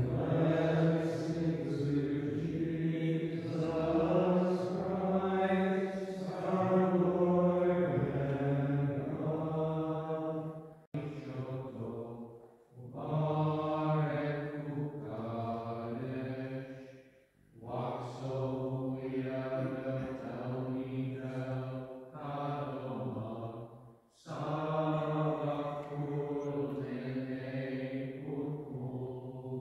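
Maronite liturgical chant sung by the monks, in long phrases with brief pauses between them.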